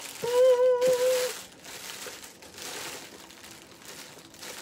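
Hands rummaging through a box of rings, with packaging crinkling and rustling throughout. Near the start there is a short held hummed note lasting about a second.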